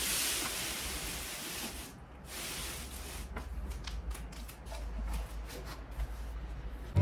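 A steady hiss that dies away about two seconds in, followed by a run of small, light clicks and rattles.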